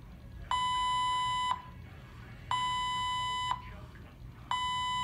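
IV infusion pump sounding its alarm: a high, steady beep about a second long that repeats every two seconds, three times here, over a faint low hum. It is the pump's alert telling the nurses to come and check it.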